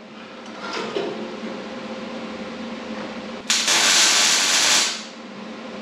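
A MIG welder tack-welding the steel roll-cage halo tube: after a steady background hum, the welding arc runs for about a second and a half from about three and a half seconds in, with sparks showing.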